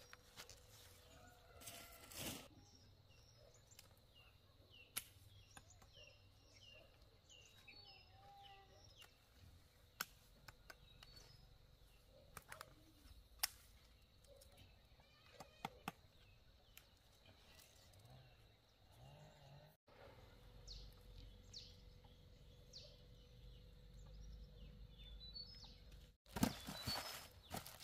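Quiet rural garden ambience: a small bird chirping in short runs, with scattered sharp clicks and rustles from kohlrabi being picked and handled, and a low rumble in the second half.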